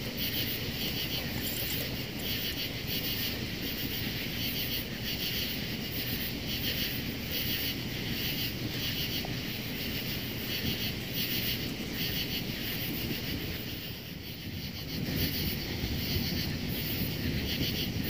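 Wood fire burning and crackling inside a titanium tent stove, with a slight swell about three quarters of the way through. Over it, insects chirp in an even rhythm of about two pulses a second.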